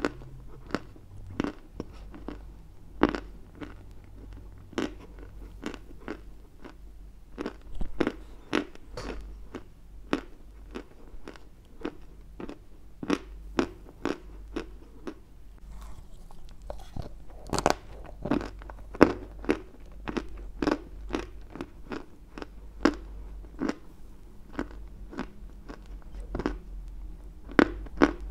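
A chunk of white Turkestan edible clay being bitten and chewed right at a lavalier mic: dry, sharp crunches coming irregularly, about one or two a second.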